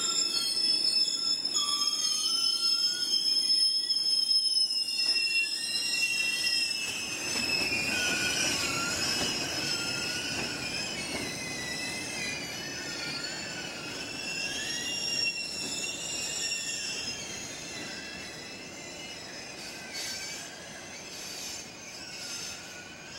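Freight train of tank wagons rolling slowly through the station tracks on a shunting move, its wheels squealing in several high, wavering tones over a low rumble. The sound fades gradually as the train draws away.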